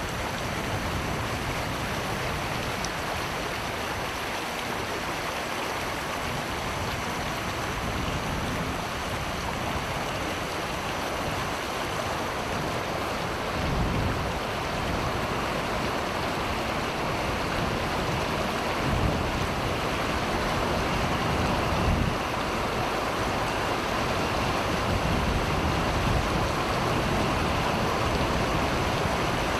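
Floodwater rushing past in a steady, even flow, with low gusts of wind on the microphone now and then.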